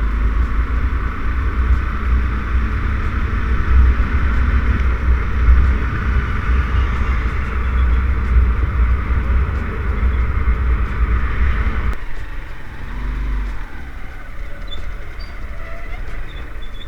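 Motorcycle on the move: a steady, loud rumble of wind and road noise that drops suddenly about twelve seconds in and stays quieter.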